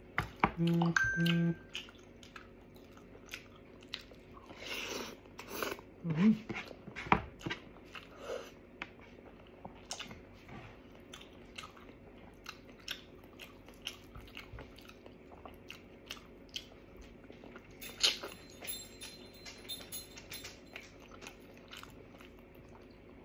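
Close-miked eating: meat being pulled off the bone by hand and chewed, with wet mouth clicks and smacks. Two short low tones sound about a second in.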